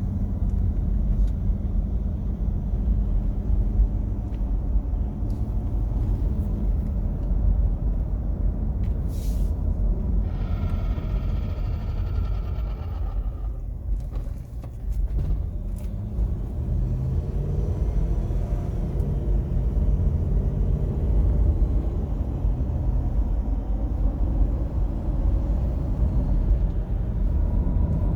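Inside the cabin of a 2004 Jeep Grand Cherokee WJ on the move: a steady low rumble, with a higher whining tone of several pitches from about ten to fourteen seconds in. The owner hears an unidentified noise in the cabin that seems to come from something touching behind the front dash, with brakes, suspension, differential and driveshaft already checked and found fine.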